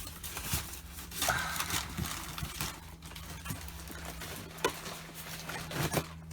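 Parcel packing being handled and rustled by hand, with scattered light clicks and knocks as items are lifted out of the box, over a steady low hum.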